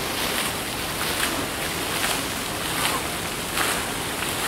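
Water-park fountains and spray features pouring and splashing into a shallow pool, a steady rushing of water.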